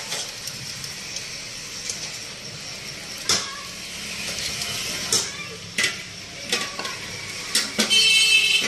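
Solid ghee being scraped and knocked out of a ceramic bowl into an empty aluminium karahi: scattered knocks and scrapes, with a denser rasping burst near the end.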